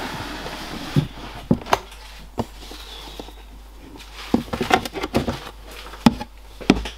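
Handling noise from a plastic snake-rack tub: scraping, then a series of separate knocks and taps as a black plastic hide is lifted out by hand.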